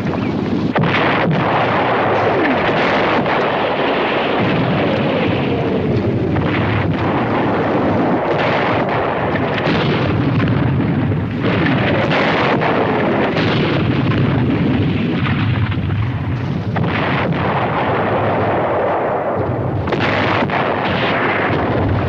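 Artillery barrage: incoming shells whistle down in pitch every few seconds over a continuous din of explosions.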